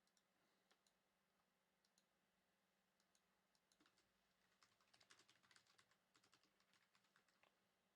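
Very faint clicking of computer keyboard keys: scattered keystrokes with a quicker run of typing in the middle.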